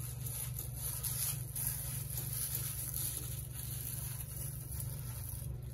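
Faint rustling and handling noises over a steady low hum.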